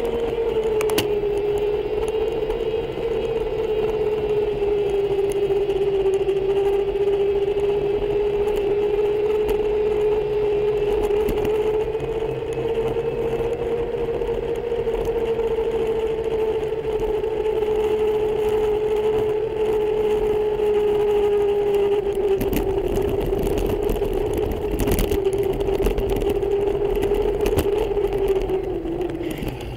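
E-bike electric motor whining steadily as the bike rides along a cycle path, its pitch drifting slightly with speed and falling near the end as the bike slows. Tyre and wind noise run underneath, and several sharp rattles come about three-quarters of the way through.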